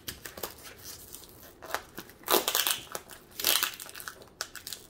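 Hands pulling and pressing at a taped kraft-cardboard parcel. The cardboard and packing tape crinkle and crackle in several short bursts.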